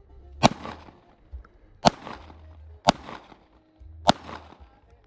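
Four shots from a Glock 19 Gen5 9mm pistol, fired about a second apart at an uneven pace, each followed by a short echo.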